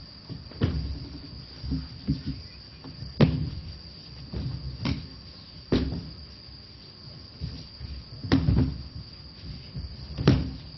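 Dull thuds and slaps of aikido partners landing on the mat in breakfalls as they are thrown, about six irregularly spaced, the loudest about three seconds in and near the end. Behind them, crickets chirr steadily at one high pitch.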